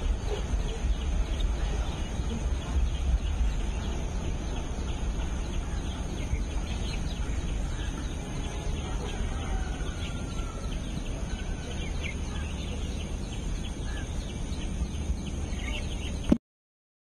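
Birds chirping here and there over a steady low rumble of outdoor ambience; the sound cuts off suddenly near the end.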